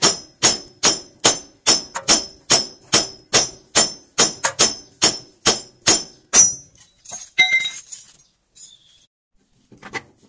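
Hammer blows on the steel steering joint of a truck's front axle, about two and a half strikes a second with a high metallic ring, to knock loose the tie rod end's tapered stud. The hammering stops about six and a half seconds in, followed by a few light metal clinks and one more knock near the end.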